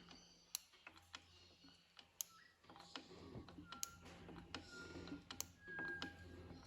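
Faint, irregularly spaced sharp clicks of an ignition spark snapping across the gap, fired by a makeshift battery, coil and contact-breaker points ignition on a Petter PA1 engine, showing the ignition is making spark. Faint rustling joins in from about the middle.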